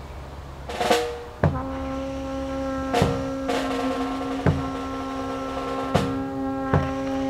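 Ensemble of snare drum and bass drum playing slow, spaced strikes about a second and a half apart, sharp snare hits alternating with low bass-drum thuds. Brass and tenor saxophone come in about a second and a half in and hold a sustained chord underneath.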